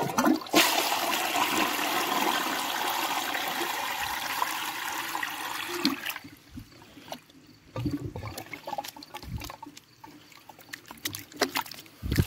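1997 Crane Galaxy Elite toilet flushing: water rushes into the muddy, dirt-filled bowl for about five seconds, then dies down to trickles and small splashes as a hand stirs the water. The bowl stays full rather than draining, a sign that the trapway is still clogged with dirt.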